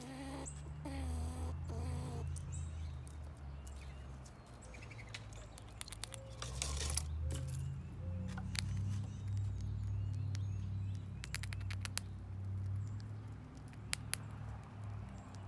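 Gray squirrel eating dried corn at a wooden feeder: scattered small clicks and crunches, over a steady low rumble. A few short bird calls come near the start.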